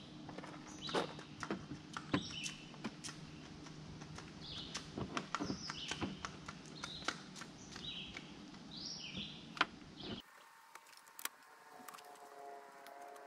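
Small sharp clicks and snaps of pliers working plastic push-pin retainer clips loose on a pickup's radiator-support cover, with birds chirping. About ten seconds in the background hum cuts off abruptly.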